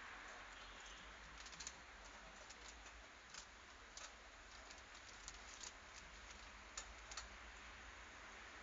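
Near silence: faint steady hiss with a scattering of light, irregular clicks and taps.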